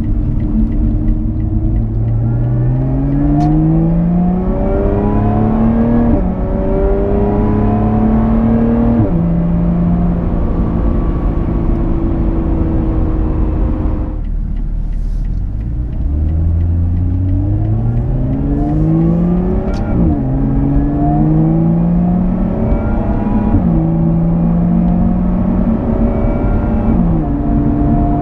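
Lotus Evora 400's supercharged V6 accelerating hard through the gears. The pitch climbs and drops back at each upshift, with three shifts in each of two pulls, and the throttle is lifted about halfway through.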